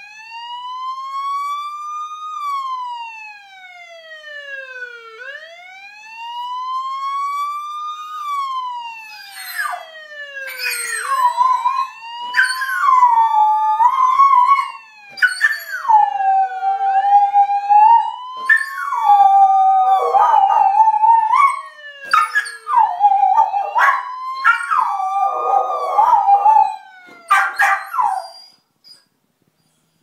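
A police siren wailing slowly up and down, each rise and fall taking a few seconds. About ten seconds in, a dog joins with long, wavering howls, louder than the siren, trying to copy it, until near the end.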